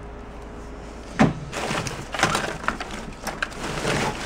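Papers and cards rustling and crackling as a hand rummages through a cardboard box, after a single knock about a second in.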